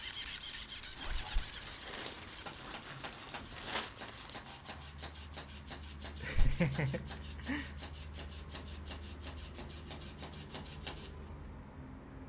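Electric flopping fish cat toy wriggling, its motor-driven tail beating in a rapid rhythmic rasp that stops abruptly about eleven seconds in. A single thump comes about six seconds in.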